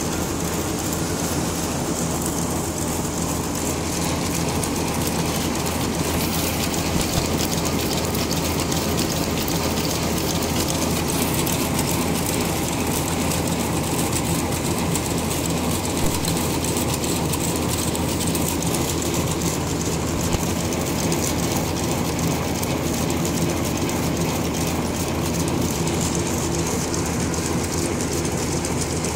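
High-speed coffee stirrer stick packing machine running, wrapping wooden sticks individually in paper with a steady, rapid mechanical clatter.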